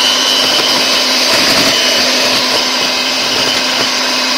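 Electric hand mixer running steadily with a high motor whine, its wire beaters churning cake batter that has had more flour added.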